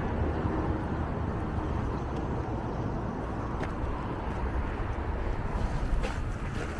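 Outdoor city ambience: a steady low rumble with a few faint ticks.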